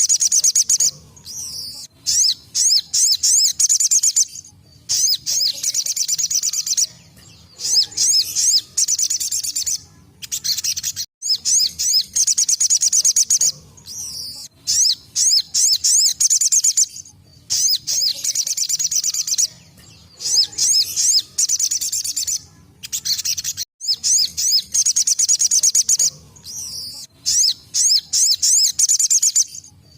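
Sogon (sogok ontong) sunbird singing in its rapid-fire 'tembakan' style: loud, high, fast trilled bursts of a second or two, repeated again and again with short pauses between.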